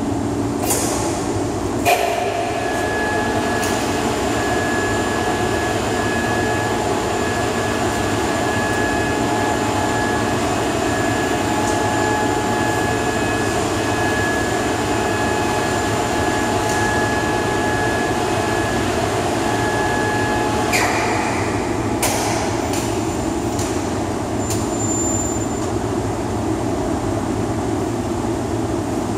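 Overhead crane running as it carries a steel load on chains: a steady drive whine over a constant rumble, starting with a clunk about two seconds in and cutting off with a clunk about twenty-one seconds in. A few light knocks follow near the end.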